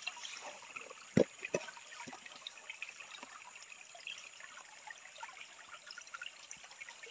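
Water trickling, with light scattered clicking from a wet mesh net being handled as small shrimp are picked out of it by hand. Two sharp knocks come a little over a second in.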